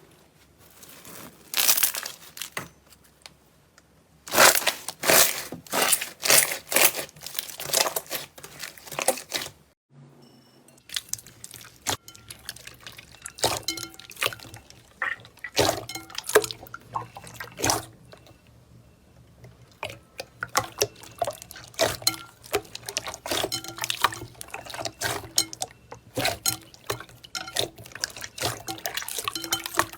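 Slime being squeezed and pressed by hand: wet squelches, sticky clicks and small pops in quick irregular bursts. About ten seconds in it cuts to another clip, where the clicking goes on over a faint steady low hum.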